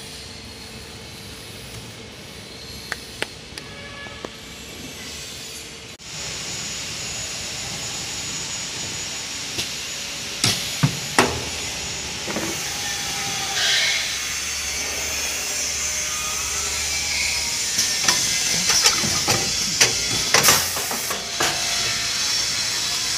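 XY-GU-27 semi-automatic tissue multi-bag packing machine running. At first a faint steady tone with a few sharp clicks, then about six seconds in a louder steady hiss sets in, with sharp clacks of the machine's parts scattered through it and several in quick succession near the end.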